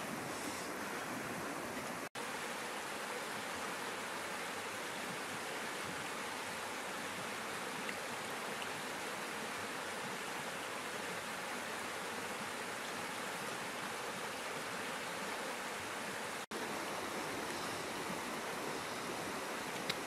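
Steady rush of a river flowing over rocks, cut off for an instant twice.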